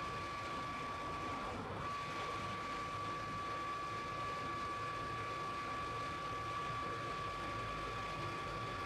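Scania fire engine's diesel engine running while the truck stands still, a steady low rumble with a constant high whine over it that breaks off briefly about a second and a half in.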